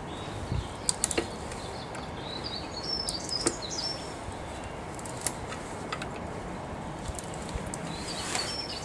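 A few sharp metallic clicks from a spanner working the self-locking nuts on the Jaguar E-type's half-shaft flange bolts, with birds chirping in the background.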